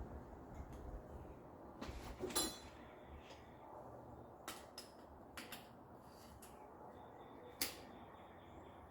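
A few sharp light clicks and knocks over a steady low hum. The loudest comes about two and a half seconds in with a brief ring, and another sharp one comes near the end.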